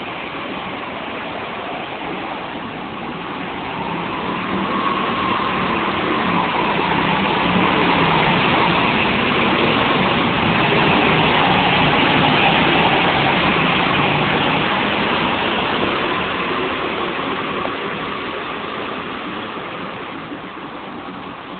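Go-kart engines running as karts circulate and pass close by: the sound swells from about four seconds in, is loudest around the middle, then slowly fades away.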